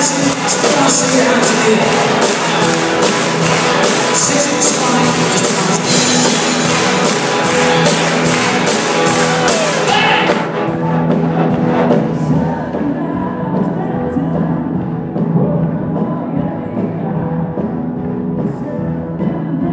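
Live rock band playing, with electric guitars, bass and a driving drum beat with cymbals. About halfway through the drums and cymbals drop out, leaving a sparser passage of guitars and bass.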